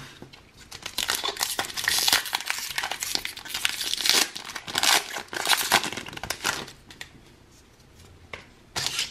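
Foil Pokémon booster pack wrapper crinkling and tearing as it is ripped open by hand, a dense crackle lasting about six seconds, followed by a short rustle near the end.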